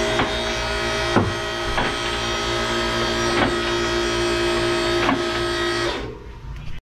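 Electric car lift motor running steadily while raising the car, with sharp clicks at uneven intervals as the lift's safety locks catch; it stops about six seconds in.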